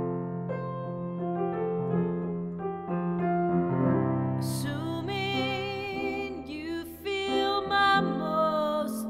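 Solo acoustic grand piano played in slow chords and melody, with a woman's voice coming in singing about halfway through.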